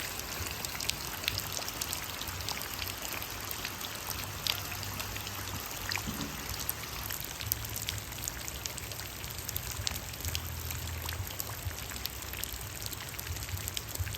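Steady rain, with many separate drops striking close by as sharp ticks over an even hiss, and a low rumble underneath.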